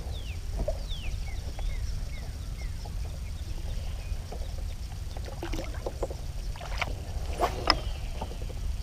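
Kayak out on the water with wind rumbling on the microphone, a few short high falling chirps in the first seconds, and scattered knocks, the loudest near the end.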